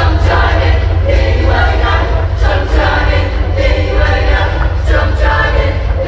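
Show choir singing a loud number over amplified accompaniment with a heavy, steady bass.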